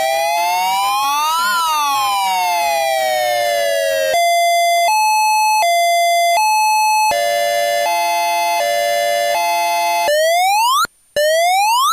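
Argentine police siren cycling through its tones. It opens with a slow wail that rises and then falls. About four seconds in it switches to a two-note hi-lo, changing about every three-quarters of a second. About seven seconds in comes a lower alternating tone of several pitches at once, and near the end short rising whoops are broken by brief silences.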